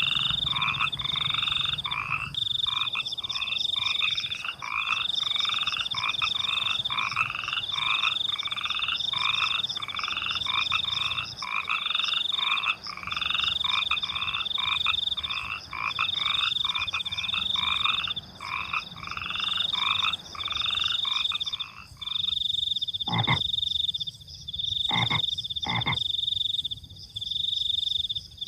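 Frogs calling in a chorus of rapid repeated croaks, over a steady high-pitched trill of crickets that breaks off briefly now and then. About 22 seconds in, the frog chorus stops, leaving the cricket trill and a few sharp clicks.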